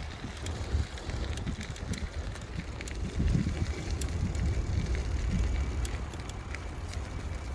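Bicycle riding along a forest trail: a steady low rumble of wind buffeting the microphone, with scattered small clicks and ticks from the ride.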